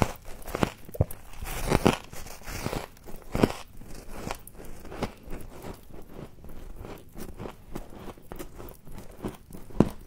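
Biting off and chewing a chunk of freezer frost, picked up close by a clip-on microphone. A few loud, sharp crunches come in the first three or so seconds, then a quick run of smaller crackling crunches as it is chewed down.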